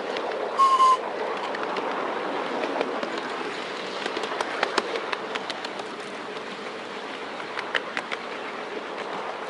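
A ride-on miniature railway train running along the track, heard from aboard: a steady rumble of wheels on rail, with one short whistle blast about half a second in. From about four seconds in, sharp clicks as the wheels pass over rail joints.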